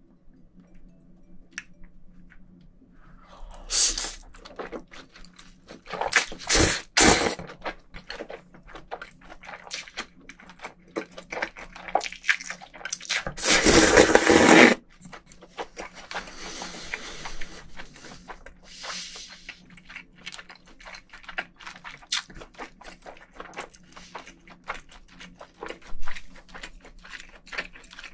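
Close-miked eating of cold naengmyeon noodles and pork ribs: chewing throughout, with short loud slurps about four and seven seconds in. A longer, louder slurp comes from about thirteen to fifteen seconds in as he drinks from a small dish held to his lips.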